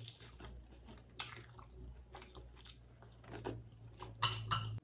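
Close-miked chewing and biting of someone eating, a string of short irregular bites and chews over a steady low hum.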